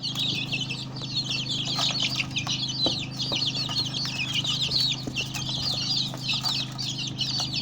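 A brood of newly hatched native chicks peeping continuously, many high chirps overlapping, over a steady low hum.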